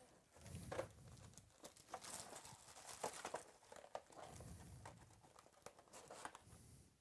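Faint crinkling and rustling of trading-card pack wrappers being opened and cards being handled, with scattered small clicks.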